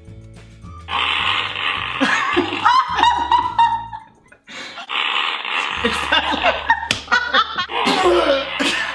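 Recorded fart sound effect from an online fart soundboard, the "Mudslide", played twice, about a second in and again about five seconds in. People laugh between and over the plays.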